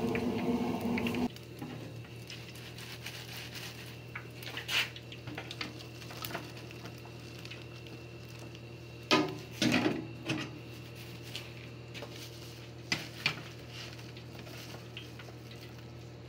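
Hot oil in a deep fryer bubbling and crackling, cut off about a second in. Then wire fry baskets rattle and clank against the fryer and tray as the fried food is tipped out, loudest about nine to ten seconds in, over a low steady hum.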